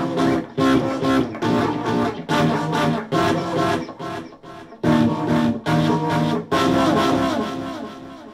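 Electric guitar played in rhythmic bursts of chords, broken by short stops. The last chord is held and rings out, fading away near the end.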